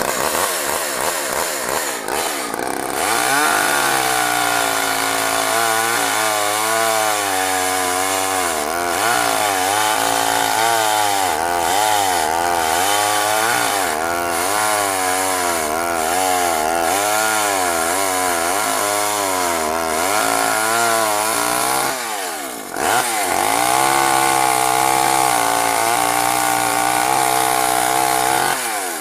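Craftsman 14-inch two-stroke chainsaw running at high revs, its pitch rising and falling over and over as it is loaded and eased, with a brief drop about 22 seconds in before it picks back up. The chain is extremely dull, so it gnaws rather than cuts.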